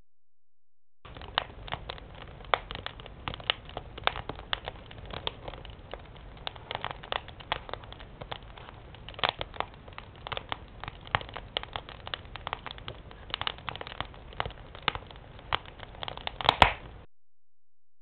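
Split firewood burning in a stove's firebox, crackling with irregular sharp pops, and a louder burst of pops near the end.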